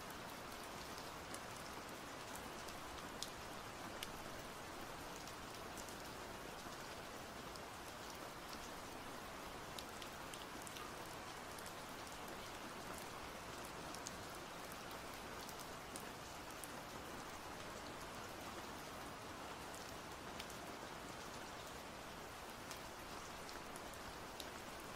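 Steady rain falling, an even hiss with a few sharper drop ticks now and then.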